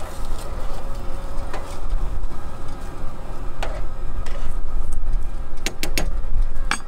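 A spoon stirring broth in a metal pot, clicking against the pot a few times, most of them close together near the end, over a steady low rumble.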